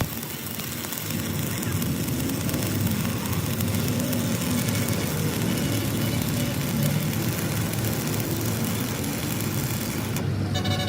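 An engine running steadily: a constant low hum with hiss, without clear changes.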